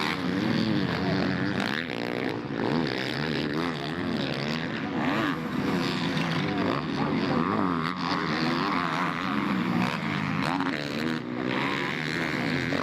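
Several motocross bike engines revving up and down as the riders go round the track, their pitch rising and falling constantly and overlapping.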